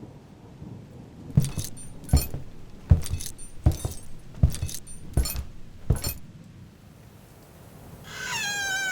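Slow, evenly paced boot footsteps, about seven steps, each landing with a bright metallic jingle of spurs. Near the end a wavering, warbling high cry begins.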